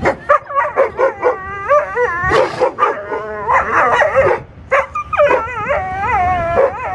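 A dog barking and yelping at a sea lion, a rapid string of high, wavering yelps and whining barks with a brief pause about halfway through.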